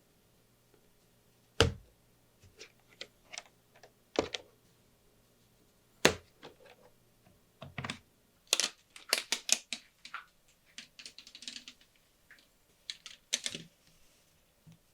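Keystrokes on a Lofree Wanderfree keyboard: irregular clicks, a few at a time at first, then quicker runs of typing about halfway through and again near the end. A few keystrokes land harder as deeper thumps.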